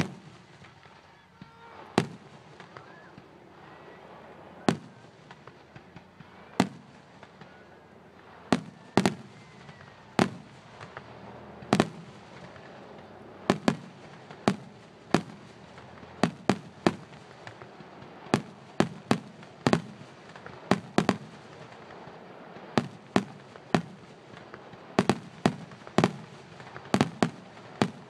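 Aerial firework shells bursting in a fireworks finale, each burst a sharp bang. The bangs come a few seconds apart at first, then quicken from about halfway into a rapid string, often two or three in quick succession.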